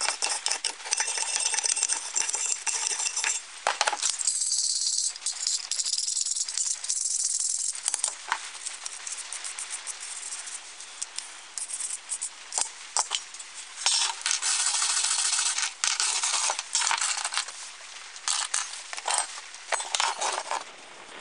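Rusty steel camp-stove parts being scraped with a hand tool and handled on a bench: scratchy scraping strokes in stretches, with metal clinks and rattles as pieces are moved and set down.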